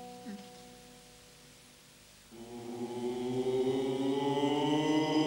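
Last electric guitar chord of the slow intro ringing out and fading. About two seconds in, the band's voices come in together on a long chanted 'ooh' that slowly rises in pitch and grows louder.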